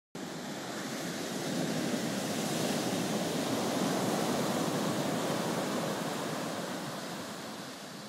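Ocean surf breaking and washing up a sandy beach, swelling to its loudest about halfway through and easing off toward the end.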